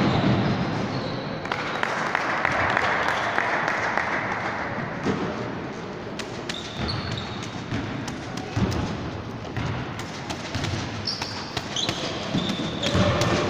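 Basketball game on a hardwood gym floor: the ball thumping as it bounces, with several short, high sneaker squeaks, echoing in the large hall.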